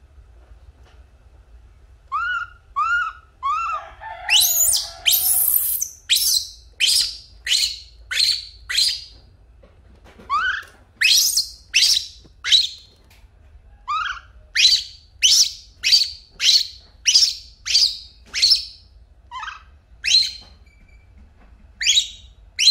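Infant macaque crying: a run of short, high-pitched calls, about one to two a second, beginning about two seconds in. A longer, harsher screech comes around four to six seconds in.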